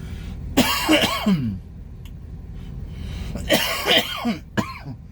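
A man coughing hard in two fits, about half a second in and again about three and a half seconds in, with strained, rasping breaths. Food or drink has gone down the wrong pipe.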